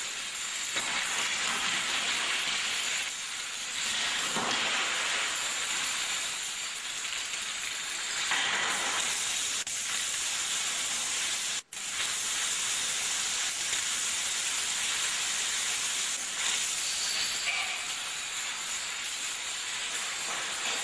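Dominoes toppling in long chains, a dense, continuous clatter that cuts out briefly a little past halfway.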